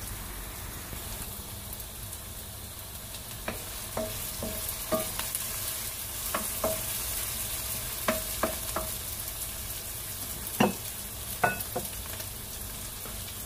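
Diced onion and minced garlic sizzling in hot oil in a non-stick wok, with a steady high hiss. From a few seconds in, a wooden spatula stirs them and knocks against the pan about a dozen times, each knock leaving a brief metallic ring.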